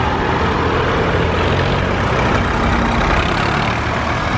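Engines of vintage tractors driving past close by, a steady low-pitched engine throb.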